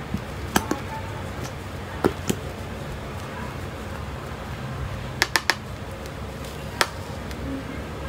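Short sharp plastic clicks and taps, the loudest a quick run of three about five seconds in, as a plastic tube of hair colour cream is squeezed and knocked against a plastic tinting bowl. A steady low hum runs underneath.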